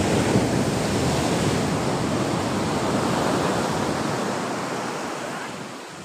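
Ocean surf: a wave breaks and its rush of water washes up the beach, slowly dying away toward the end.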